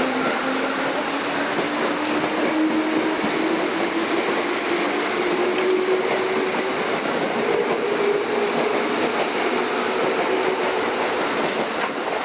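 JNR 205 series Yamanote Line electric train pulling out of the platform. Its traction motors give a slowly rising whine as it picks up speed, over steady running noise from the passing cars.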